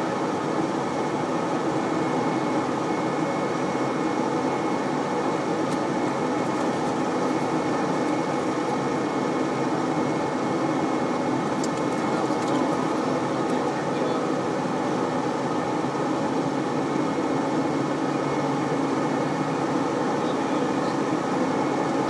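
Steady flight-deck noise of an airliner on approach with the gear down: an even rush of airflow and machinery hum, with a faint steady high whine over it.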